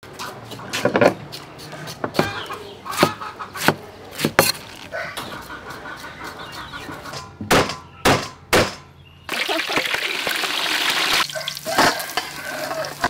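Cooking clatter: sharp knocks and clicks of utensils against metal bowls, several in quick succession. A loud steady hiss follows for about two seconds, cutting off abruptly.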